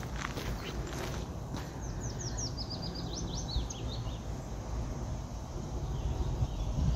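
A songbird sings one short phrase of quick notes, each sliding down in pitch, about two seconds in, over a steady low outdoor rumble.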